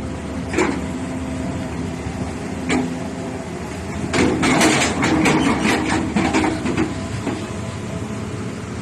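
Excavator diesel engine running steadily at idle, with a few sharp clicks early on and a cluster of clattering metal knocks from about four to seven seconds in.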